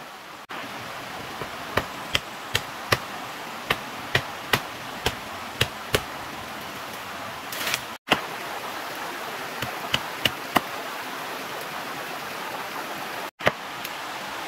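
Machete chopping bamboo and brush: a series of sharp strikes, about ten in the first six seconds, a quick run of four around ten seconds in and one more near the end, over a steady rushing hiss.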